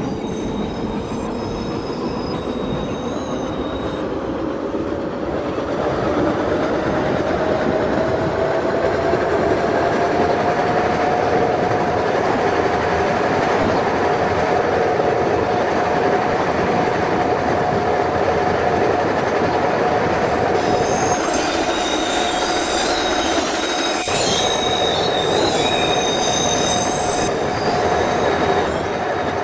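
Subway train heard from inside the car: the motor whine rises in pitch as the train accelerates over about ten seconds, then holds steady at speed over a rumble of wheels on rail. From about two-thirds through, high-pitched wheel squeal joins in.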